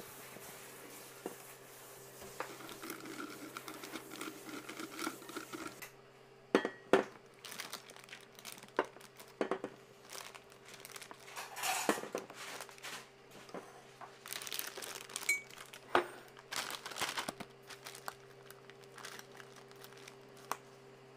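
A spatula scrapes meringue around a stainless steel mixing bowl. From about six seconds in, a clear plastic piping bag crinkles and rustles as it is filled and handled, with scattered sharp clicks and knocks.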